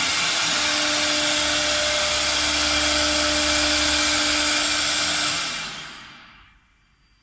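CNC wood router running with a loud, steady spindle and cutting noise and a faint steady hum, which dies away over about a second around five and a half seconds in, leaving near quiet.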